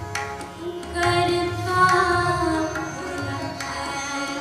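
Sikh devotional shabad music: a voice holding long, bending notes over tabla strokes.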